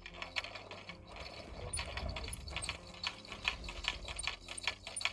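Fishing reel clicking in a quick, steady run as the handle is cranked, winding line in after a bite.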